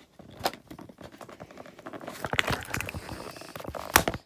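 Hands working a toy's cardboard packaging and its plastic ties free: a run of rustles, scrapes and small clicks, with a few sharp snaps, the loudest near the end.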